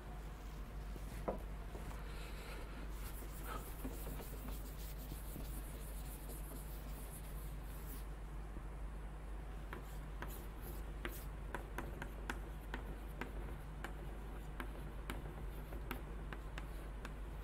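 Chalkboard being wiped with a duster for the first several seconds, a soft rubbing hiss. Then chalk writing on the blackboard, a quick irregular run of sharp taps and scratches. A steady low hum sits underneath.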